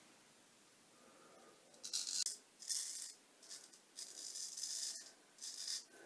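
A straight razor cutting through lathered stubble on the jaw and cheek: a run of short, crisp scraping strokes beginning about two seconds in.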